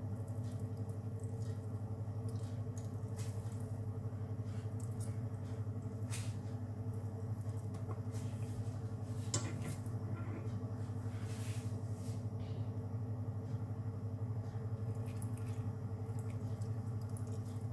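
Faint clicks and small wet squelching of a lemon wedge being squeezed by hand over a plastic bowl, over a steady low hum.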